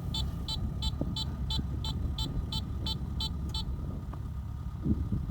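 Engine running under a rapid electronic warning beeper, about three high beeps a second, which stops about three and a half seconds in.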